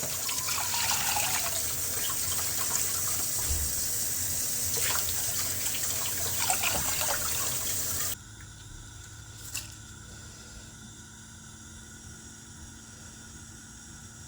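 Water running from a tap, a steady hiss with scattered splashes, for about eight seconds, then cut off suddenly, leaving a faint steady hum with a single click.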